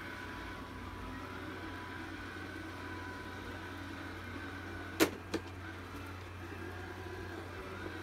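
Robit V7S Pro robot vacuum running as it drives across carpet on its way back to its charging dock: a steady hum with a thin high whine, broken by two sharp clicks about five seconds in.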